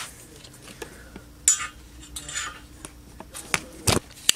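Metallic clinks, scrapes and a few sharp clicks from the cast housing and rotor of a Federal Model 2 air raid siren being handled during reassembly, the clicks coming close together near the end.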